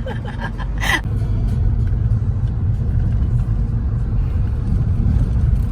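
Steady low road and engine rumble inside a moving car's cabin, with a single brief knock about a second in.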